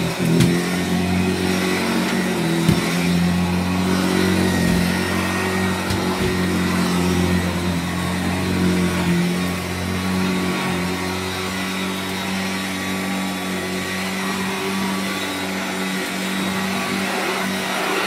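Hoover Junior 119 upright vacuum cleaner running steadily while pushed over carpet, a constant motor hum. Two brief knocks come in the first three seconds.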